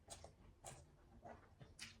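Faint eating sounds: chewing and mouth smacks, four short clicks in two seconds.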